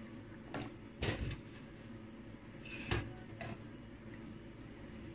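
Silicone spatula stirring chicken pieces in a non-stick pan: four short scrapes and knocks against the pan, the loudest about a second in, over a steady quiet background.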